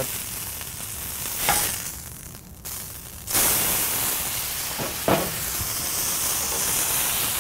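An 80/20 ground-beef smash patty sizzling on a Blackstone steel griddle as a steel spatula scrapes under it to flip it. The sizzle gets louder about three seconds in. Two short scrapes come about a second and a half in and near five seconds.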